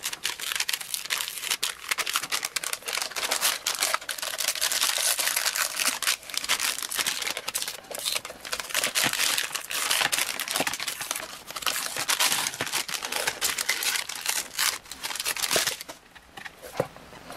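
Paper protective masking being peeled slowly off a black extruded acrylic sheet: a continuous crackling, crinkling sound as the adhesive lets go, which dies away about a second and a half before the end.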